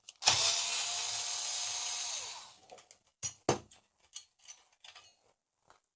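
Electric screwdriver running for about two seconds to undo a screw, its motor pitch dropping as it stops, followed by a few light clicks of the screw and metal parts being handled.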